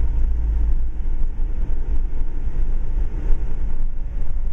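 Steady engine and road rumble heard inside a Subaru Outback coasting downhill in second gear, using engine braking.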